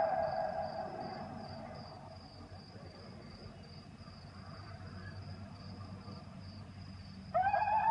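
Crickets chirping in a steady, high, finely pulsing trill. A loud wavering high tone fades out and slides down slightly over the first two seconds, then cuts back in abruptly near the end.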